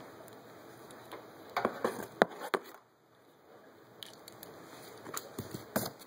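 Clicks and scraping of a hand RJ45 crimp tool's stripping blade as a Cat5 cable is turned in it to cut through the outer jacket, with a cluster of sharp clicks about two seconds in and a few lighter ones near the end.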